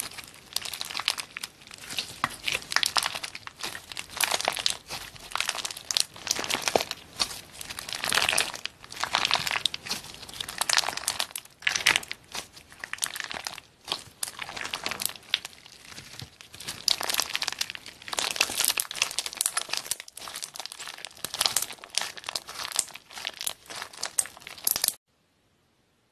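Clear slime packed with small white and green pieces being squeezed and kneaded between fingers: dense crinkling and crackling that swells with each squeeze. It stops about a second before the end.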